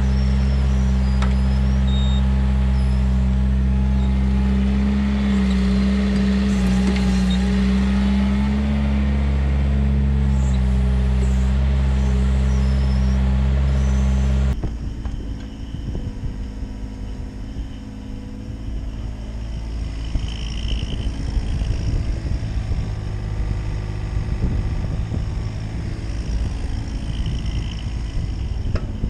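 Bobcat mini excavator's diesel engine running steadily while digging, its pitch lifting slightly for a few seconds. About halfway through, the engine sound cuts off suddenly and a quieter, uneven low rumble follows.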